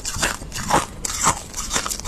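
Freezer frost being bitten and chewed, with a crisp crunch about every half second.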